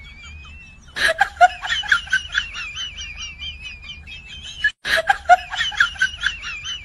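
A comic sound effect of high-pitched snickering laughter, many quick wavering syllables. It starts about a second in, cuts off dead just before five seconds and starts over the same way.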